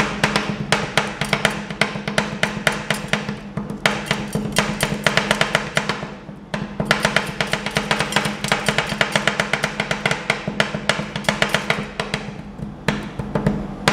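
Two metal ice-cream spatulas chopping corn kernels into ice cream base on a frozen steel pan: rapid, irregular metallic clacking and tapping on the plate, with a short pause about six seconds in.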